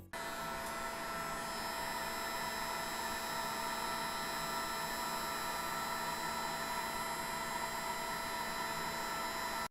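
Hot-air heat gun blowing steadily, with a whine of several fixed tones over the fan noise, as it shrinks heat-shrink tubing over soldered wire joints.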